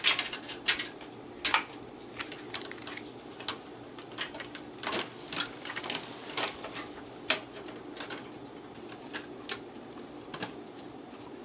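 Irregular clicks and knocks of metal and plastic as a Macintosh SE/30's logic board and cables are handled and slid into the chassis, the board scraping into its guide grooves.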